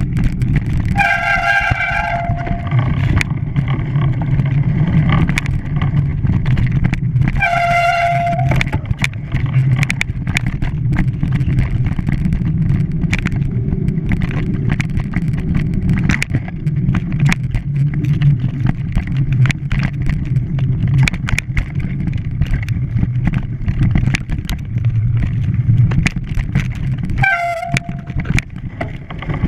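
A vehicle running with a steady low engine rumble and many small clicks, and three horn or whistle blasts: about a second in (lasting about two seconds), briefly around seven seconds in, and again near the end.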